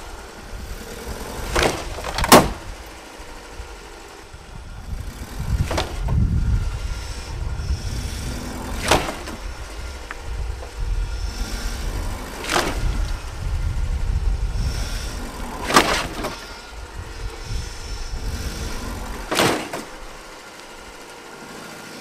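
Ford pickup truck's engine running and revving in surges, with seven sharp metallic clanks a few seconds apart. It is the truck backing up to yank on a chain wrapped around a crashed car's bent frame member, pulling it straight.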